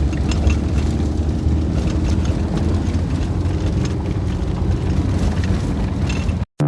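Steady low rumble of a moving vehicle's engine and motion, heard from inside. It cuts off abruptly near the end.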